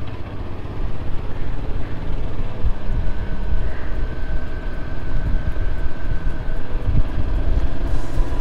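Motorcycle running steadily under way, its engine rumble mixed with wind rush, with a faint high whine for a few seconds in the middle.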